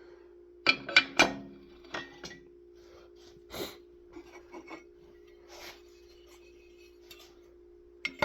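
Metal chainsaw crankcase halves and parts knocking and clinking against each other and the workbench as they are handled, with a few sharp ringing knocks about a second in and again near the end, and some rubbing between. A steady low hum runs underneath.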